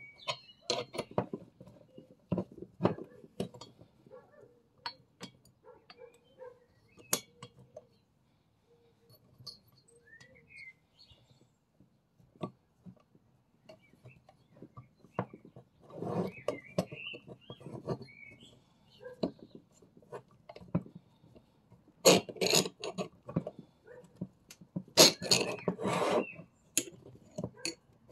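Metal hand tools and small metal parts clinking and clattering as a Stihl FS 38 string trimmer is taken apart to remove its flywheel, with scattered clicks and two busier bursts of clatter around the middle and near the end.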